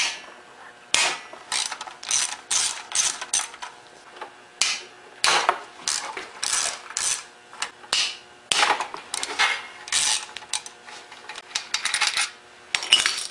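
Socket ratchet wrench clicking in quick runs of strokes, with short pauses, as the bolts holding an engine's sump cover are backed out.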